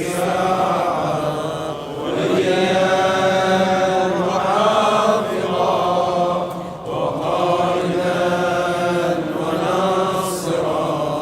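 A male voice chanting a supplication in slow, drawn-out melodic phrases of about two seconds each, over a sustained vocal drone.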